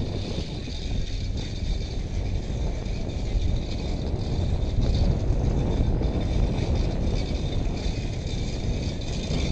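Wind rumbling on a helmet-mounted camera's microphone while riding a bicycle, with the bike's mechanical rattle underneath.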